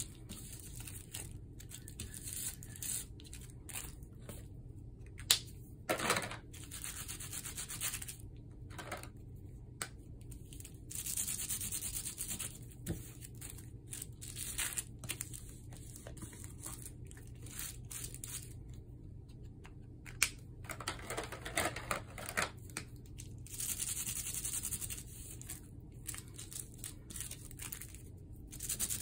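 Felt-tip markers scribbling back and forth over bubble wrap in several stretches of quick, scratchy strokes. Between them the plastic bubble wrap is pressed and rubbed onto paper to print dots. A couple of sharp taps come about five seconds in and about twenty seconds in.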